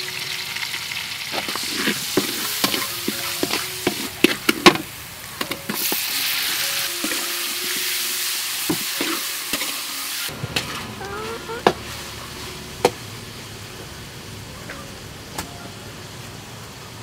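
A metal spatula stirs and scrapes in a wide metal pan while chopped garlic and chili sizzle in hot oil, with frequent sharp scrapes and clicks. The sizzle grows louder about six seconds in, with chicken pieces frying. It then cuts off suddenly to a quieter background with a few isolated knocks.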